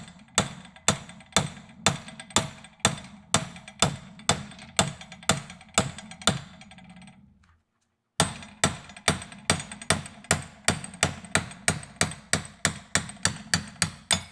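Hammer blows on a drift, steel on steel, driving an old kingpin bushing out of an early Ford spindle clamped in a vise. Steady strikes about two a second, a brief pause about seven seconds in, then quicker blows building to about three a second.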